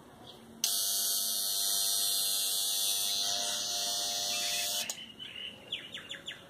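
Agni A1537 mini rotary grinder running free through its flexible shaft with a cutting disc fitted: a steady high-pitched whine that starts abruptly about half a second in and cuts off after about four seconds. A few light handling clicks follow.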